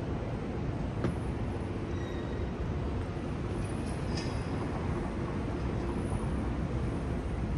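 Steady low rumble of downtown street traffic, with a faint steady hum and a few light clicks.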